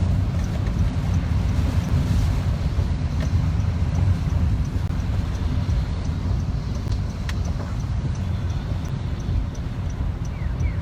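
Steady low road and engine rumble heard from inside a moving car, with a faint regular ticking at about three ticks a second.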